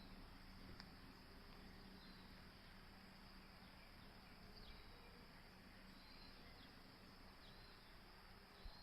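Near silence: faint outdoor ambience with a few quiet, short high chirps scattered through it.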